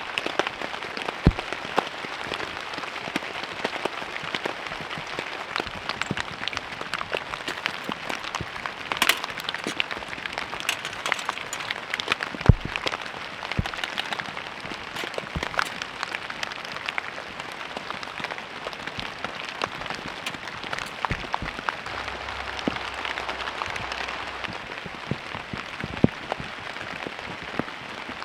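Steady rain falling, a continuous hiss scattered with many sharp, irregular drips close by. A few heavier knocks stand out, about a second in and around twelve to fourteen seconds in.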